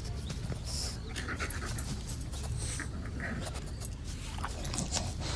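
A dog panting with quick, rapid breaths.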